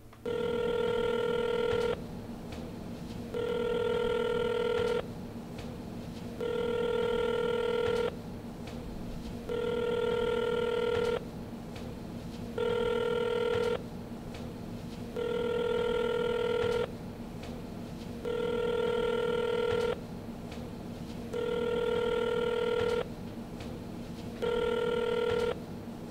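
Telephone ringing nine times in an even rhythm, each ring about a second and a half long with short gaps, over a steady low hum; the call goes unanswered and is picked up by voicemail.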